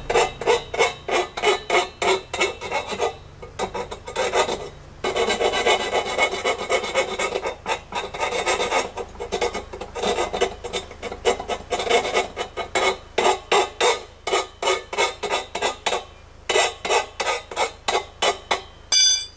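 Hand file rasping back and forth across the freshly cut end of a hollow metal chair-leg tube, deburring the cut, at about three strokes a second with a brief slower stretch. A short metallic ring sounds near the end.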